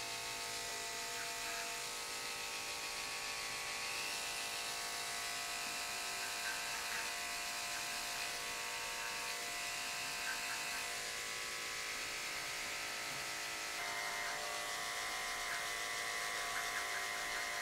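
Electric pet-grooming clippers with a 10 blade running steadily with a buzzing motor hum as the blade passes over the synthetic hair on the ear of a dog model.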